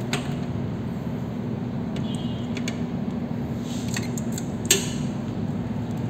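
Steady low hum with a few light clicks and taps from handling a clamp meter and its test probes, the sharpest a little before the end.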